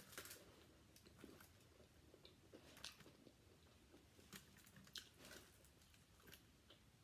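Faint close-miked chewing of crispy fried chicken, with scattered soft clicks and crunches as fingers pick at the pieces on a foil tray.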